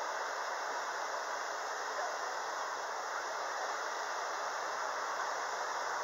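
Tall jet fountain in a pond, its spray falling back onto the water in a steady, unbroken hiss of splashing water.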